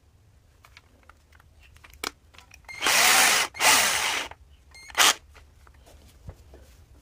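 12-volt cordless drill run in three short bursts, the second about a second in length and the last very brief, the motor pitch rising and falling with each trigger pull. Light clicks of handling come between the bursts.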